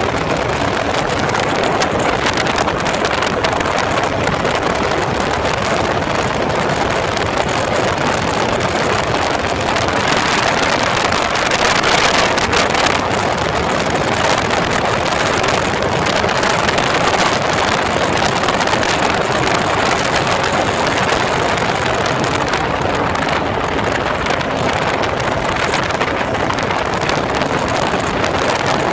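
Heavy wind buffeting the microphone over the steady drone of a KTM Duke 200's single-cylinder engine at highway speed, briefly louder about midway.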